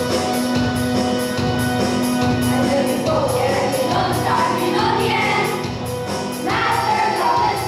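Youth choir singing over backing music with a steady beat; held instrumental notes open, and the choir's voices come in about three seconds in.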